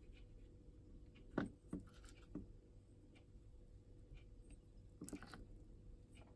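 A few light knocks and taps: a sharper one about a second and a half in, two softer ones just after, and another cluster near the end, over a quiet room background.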